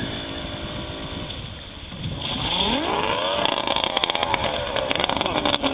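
Outboard motor on a panga running fast, then revving up sharply about two seconds in and slowly winding down as the boat is driven up onto the beach. A rapid clatter over the last two seconds is the propeller churning through the shallows and sand, which can't be good for the prop.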